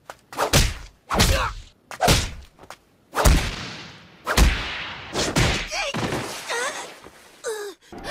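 Anime fight sound effects: about six heavy punch-like thuds, roughly a second apart, each with a short whooshing tail. Strained grunts from the fighters come near the end.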